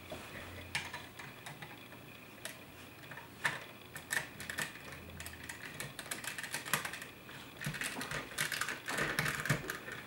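Plastic LEGO pieces clicking and rattling as they are handled and a roof plate is pressed onto a brick-built truck, in scattered, irregular clicks that come more often in the second half.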